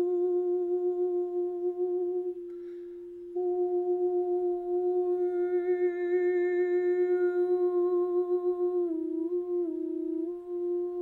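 A woman's voice toning one long, held note with a slight waver, like a sustained hum. She breaks off for a breath about two and a half seconds in, and the tone brightens into an open vowel in the middle. The pitch dips briefly near the end before settling back.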